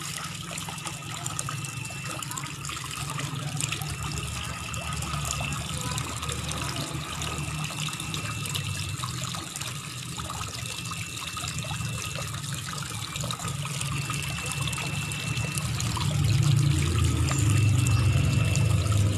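Tap water running steadily into a large plastic tub, with scattered light clicks and scraping as a fish is cleaned on a board. A low hum swells up about sixteen seconds in, and a faint high tone comes back every few seconds.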